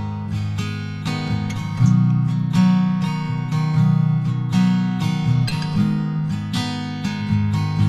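Background music: an acoustic guitar piece with a steady rhythm of strummed chords.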